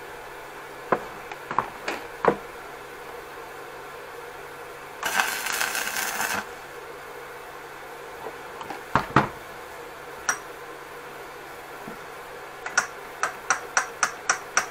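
Metal tools and parts clinking and knocking against a steel moped frame during fitting work. A hissing burst of about a second and a half comes about five seconds in, and a quick run of light, ringing metallic taps, about three or four a second, comes near the end.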